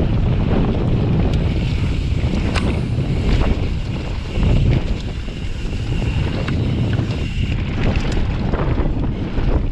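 Wind buffeting the action camera's microphone as a mountain bike descends a dirt singletrack at speed, with tyre noise on the dirt. Sharp clicks and rattles from the bike come over the bumps throughout.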